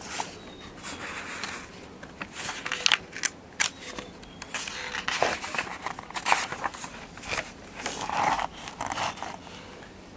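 Pages of a picture book being turned and handled: a run of irregular papery rustles and sharp flicks.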